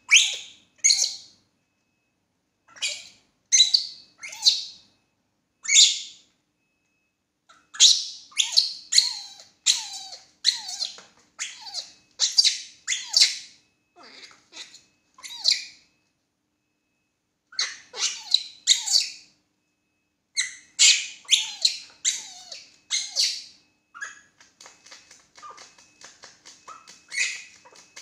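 Baby macaque crying: repeated shrill screeching calls in bursts, some sliding down in pitch, broken by a few short pauses. Near the end the calls turn fainter and quicker.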